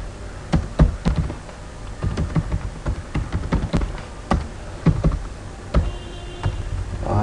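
Typing on a computer keyboard: an uneven run of key clicks, a few strokes a second, with short pauses between bursts.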